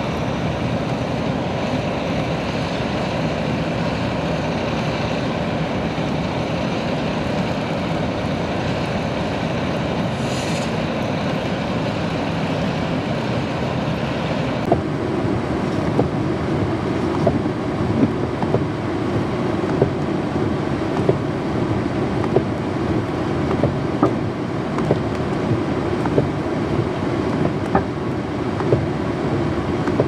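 Steady running of a row of idling snow plow dump trucks, with a short hiss about ten seconds in. About halfway through it gives way to blizzard wind rushing over the microphone, with sharp snaps about once a second from a flag whipping on its flagpole.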